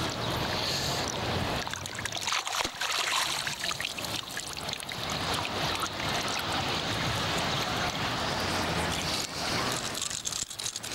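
Sea water splashing and dripping as a hooked fish is brought up out of the water beside a boat, with scattered small knocks and clicks over a steady low hum.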